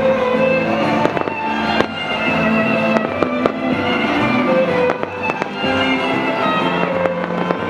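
Fireworks bursting repeatedly, a string of sharp cracks and bangs roughly every half second to second, over music playing along with the show.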